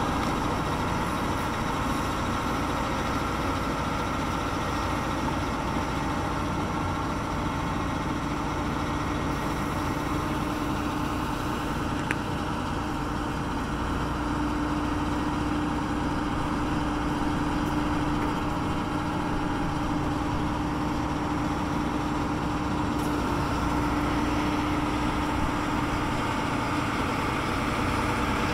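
An engine idling steadily: an even hum with one steady tone in it.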